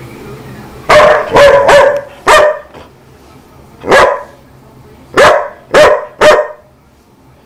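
Chihuahua barking: a quick run of four or five barks, then four more spaced about half a second to a second apart.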